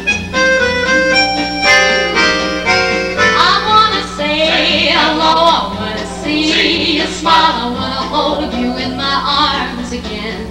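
Music: held instrumental notes, then a warbling melody line with vibrato from about three seconds in, over a steady low hum.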